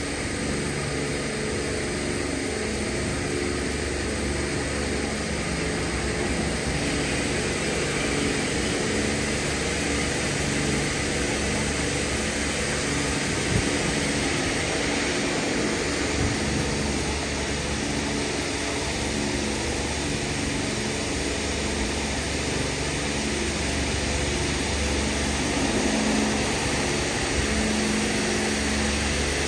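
Istobal M12+ rollover car wash in its 80-bar side high-pressure stage: a steady hiss of water jets spraying over a continuous machine hum.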